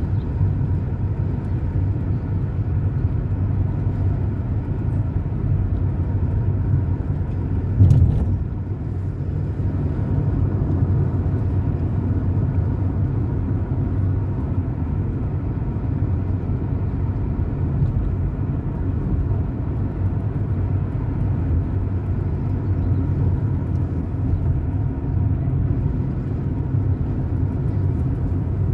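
A car driving on city streets: steady low engine and road noise, with one sharp thump about eight seconds in.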